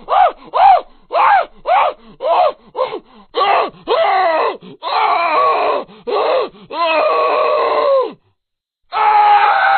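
Custom monster vocalisation sound effects for the kaiju M: a rapid run of short calls that each rise and fall in pitch, then longer drawn-out calls. After a brief silence near the end, one sustained call begins.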